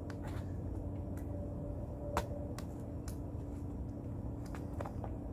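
Steady low background hum with scattered light clicks and ticks; the sharpest click comes about two seconds in.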